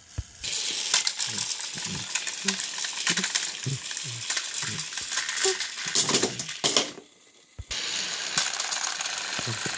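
Battery-powered toy train engines running on plastic track: a dense clicking, rattling gear and wheel noise. It drops out briefly at the start and again about seven seconds in.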